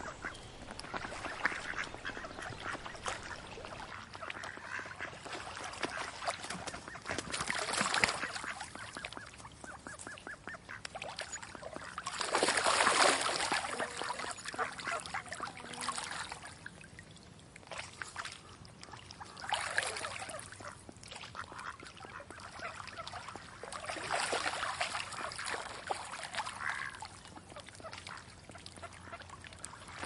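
Ducks quacking in repeated bouts a few seconds apart, the loudest about twelve to fourteen seconds in.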